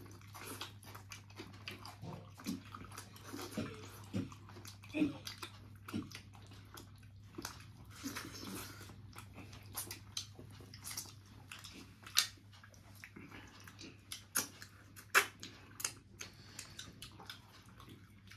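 A person eating close to the microphone: chewing and lip smacks with scattered sharp clicks, the sharpest about twelve and fifteen seconds in.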